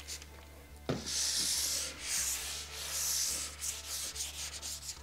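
Wet sanding a clear-coated wooden dresser top with 800-grit sandpaper on a block, lubricated with soapy water, to knock down texture in the finish before the next coat. After a light knock about a second in come two long back-and-forth strokes of about a second each, then shorter, lighter ones.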